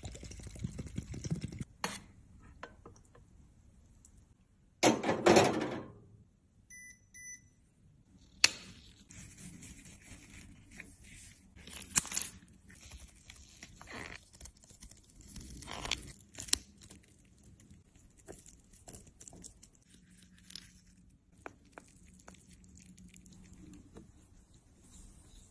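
Close-up handling sounds of making a foundation cushion. Liquid is poured from a plastic bottle into a metal tin at the start, then comes a loud rustle, two short beeps, sharp snips of scissors cutting through foundation sample sachets, and the soft clicks and scrapes of foundation being stirred in a plastic cushion compact.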